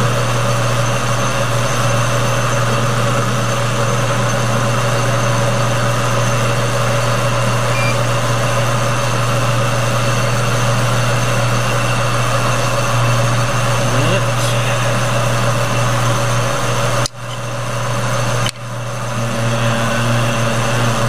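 Metal lathe running steadily, its chuck spinning a 1-inch 6061 aluminum bar while the tool takes a light facing cut on the end. Two sudden brief drops in level come near the end.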